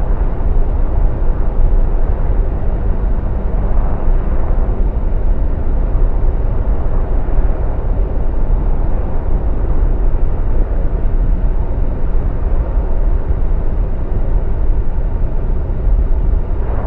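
Steady, loud, low rumbling noise of a jet airliner in flight, engines and rushing air, with no let-up or sudden impact.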